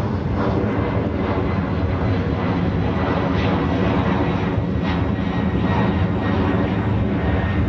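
Airliner's engines climbing out overhead just after takeoff: a loud, steady engine noise.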